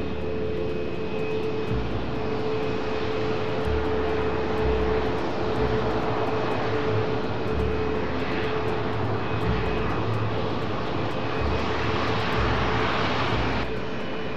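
Jet engines of a Rolls-Royce Boeing 747-200 flying testbed running steadily as the jet rolls on the ground: RB211 engines with a Trent 1000 test engine. They make a continuous rushing noise with a steady droning tone, turning slightly duller near the end.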